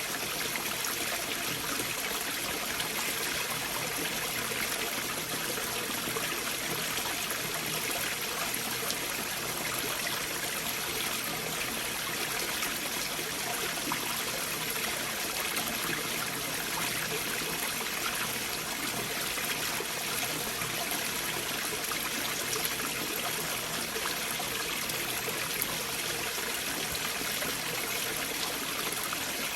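Stream water flowing beneath large boulders, a steady rushing and trickling that holds even throughout, with little bass.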